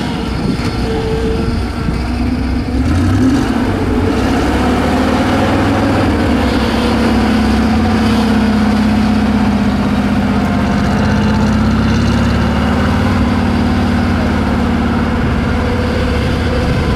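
ZIL-131 6x6 truck's engine running as the truck drives over rough ground, its note strengthening and rising a little about six seconds in, then holding steady.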